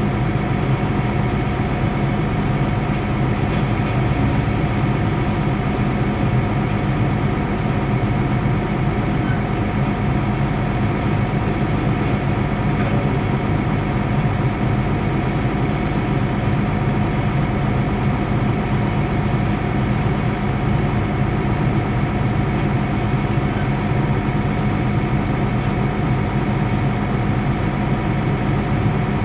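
Caterpillar D6 bulldozer's diesel engine running steadily, heard from inside its cab: a constant drone with no change in speed.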